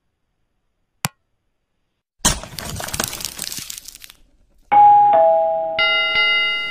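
Subscribe-animation sound effects: a single click about a second in, a two-second rush of noise, then a two-note ding-dong doorbell chime and a small bell ringing several times near the end.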